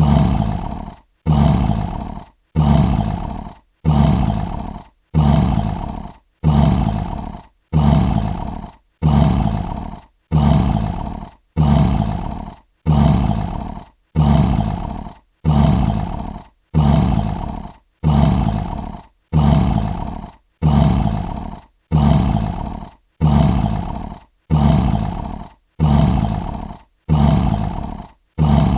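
Lion roaring: the same short roar repeated evenly about every one and a half seconds, each one starting suddenly, deep and fading out within a second, like a sample played on a loop.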